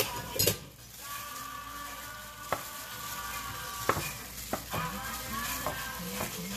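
Gloved hand mixing raw chicken pieces through a wet marinade in a bowl, with a few sharp clicks and taps along the way.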